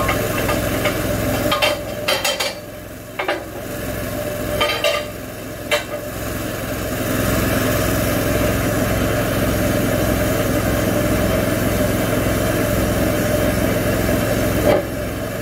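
Small gas engine on a homemade bandsaw mill idling steadily between cuts. Several sharp wooden knocks and clunks come in the first six seconds, with one more near the end, as a cut board is worked off the log.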